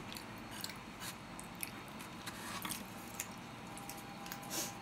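Close-miked chewing: soft, wet mouth clicks and smacks scattered throughout, with a short, louder noise near the end.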